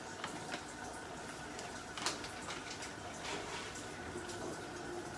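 Pots and a pan of food boiling and simmering on a stovetop: a steady bubbling hiss with scattered small pops, the sharpest about two seconds in.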